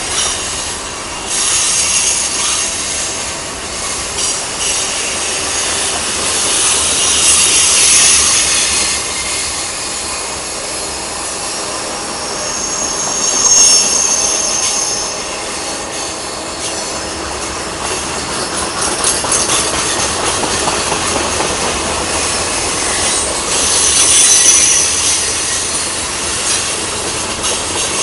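Freight train cars rolling past, with a steady rumble and clatter of wheels on rail. High-pitched wheel squeals rise above it about three times.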